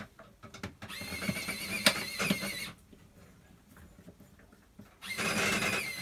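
Cordless electric screwdriver whirring as it drives in the fridge door hinge screws, in two runs: one about a second in lasting under two seconds, the second starting near the end.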